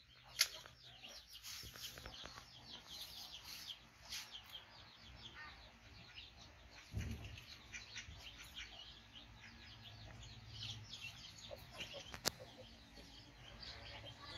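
Faint, busy chirping of many birds in the background, with a sharp click about half a second in and another near the end.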